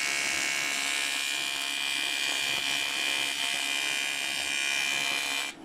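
TIG (argon-arc) welding arc on a cast aluminium steering knuckle: a steady electric buzz with a hiss, cutting off suddenly near the end as the arc is broken.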